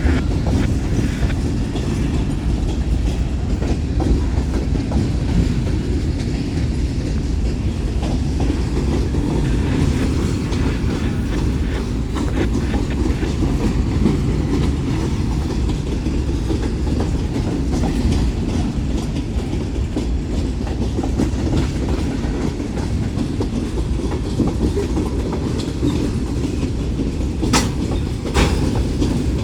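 Freight cars of a BNSF manifest train rolling past, a steady loud rumble of steel wheels on the rails. Two brief sharp high clicks come near the end.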